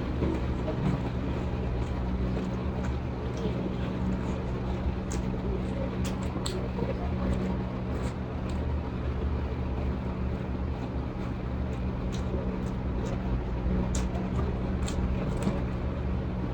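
A steady low mechanical hum, with scattered small clicks and smacks of someone eating and chewing close to the microphone.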